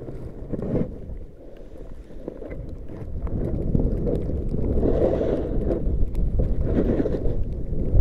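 Wind buffeting the microphone, a rumbling rush that grows louder after the first couple of seconds.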